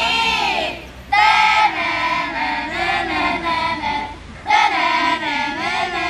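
A group of young students' voices singing together in unison, in long phrases broken by short pauses about one and four seconds in.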